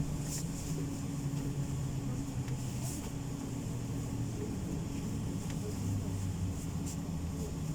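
Steady hum and rumble of a PESA tram in motion, heard from inside the car. A low motor tone drops in pitch about three seconds in.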